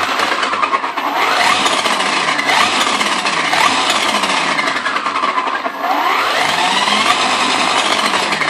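HPI Baja 5B Flux's brushless motor and gear drivetrain whining, rising and falling in pitch twice as the throttle is worked, with faint clicking mixed in that the owner does not think is right.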